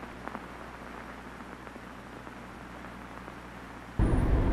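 Steady hiss like static, with a few faint ticks. About four seconds in, a loud low rumble cuts in suddenly.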